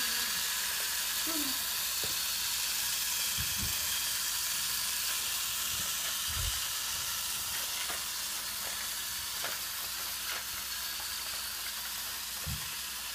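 Fisher-Price GeoTrax battery-powered toy train running along plastic track: a steady whirring hiss from its small motor and wheels, with faint clicks. A few soft low thumps are scattered through it.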